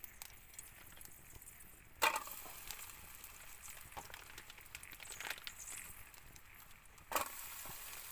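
Foie gras going into a hot pan over a campfire and sizzling. There is a sudden loud hiss about two seconds in, then a steady crackling fry, and a second surge of sizzling about seven seconds in.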